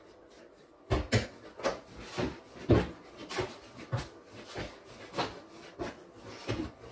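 Chapati dough kneaded by hand on a kitchen worktop: a regular run of soft thuds and rubs, about two a second, starting about a second in.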